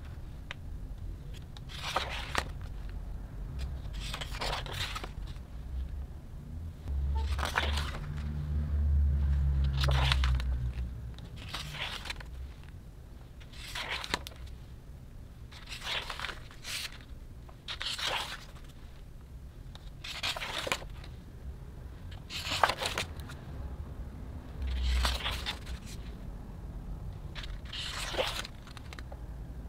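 Pages of a hardcover photobook being turned one after another, a papery swish about every two seconds, around a dozen in all. A low rumble runs for a few seconds around the middle.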